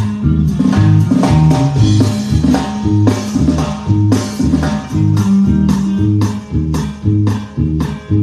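Bajo sexto strumming a steady norteño rhythm over electric bass and drums, played during a sound check so its level in the stage monitors can be set.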